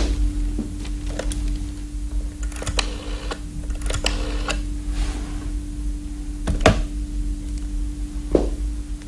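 Radio-play sound effects: scattered clicks and knocks, a rattling scrape about three to four and a half seconds in, and a sharp knock near seven seconds, over a steady low hum.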